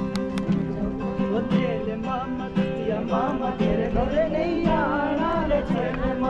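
Music: guitar accompaniment with a singing voice carrying a wavering melody from about three seconds in.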